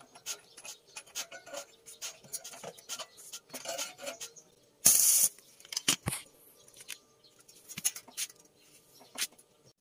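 Roller chain and steel sprockets handled and fitted by gloved hands: scattered light metal clicks, rattles and rubbing. A short, loud hiss comes about five seconds in, followed by a sharp click.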